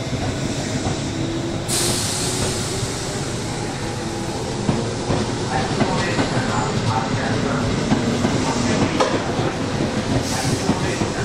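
Electric train on the move: steady running noise with a faint rising whine in the first few seconds, a hiss setting in about two seconds in and another near the end, and wheels clicking over rail joints through the second half.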